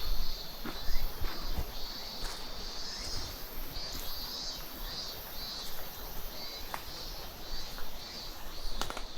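Outdoor chorus of insects chirping in a steady high-pitched pulse, about two pulses a second, with a few light knocks near the start and end.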